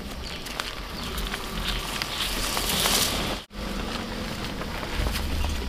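Outdoor ambience: a low wind rumble with scattered crackles and ticks, and a hiss that swells about two to three seconds in. The sound drops out for an instant about three and a half seconds in.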